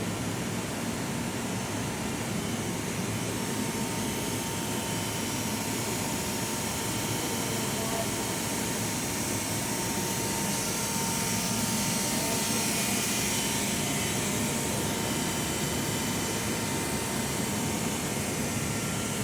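Steady machine noise: an even, unbroken rush with a faint constant whine.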